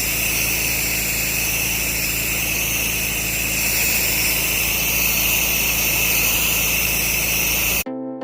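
8-gallon-a-minute pressure washer running steadily, its low-pressure downstream-nozzle water jet hissing as it rinses cedar shake siding. The sound cuts off suddenly near the end, and electronic music starts.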